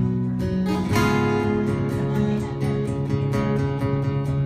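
Acoustic guitar strumming chords in an instrumental passage of a live song, with no singing; a new chord rings out about a second in.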